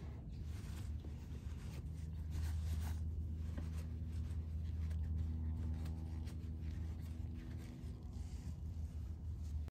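Terry-cloth towel rubbing and scuffing over the scooter's final drive casing and wheel area as it is wiped down, over a steady low hum.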